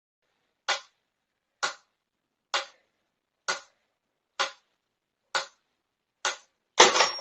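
Seven short, sharp clicks or taps, evenly spaced a little under a second apart, with dead silence between them. Near the end a louder cluster of clattering taps begins.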